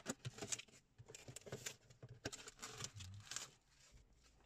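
Cardboard box flaps being pulled open and handled: a faint series of short rustles, scrapes and light taps of cardboard, dying down near the end.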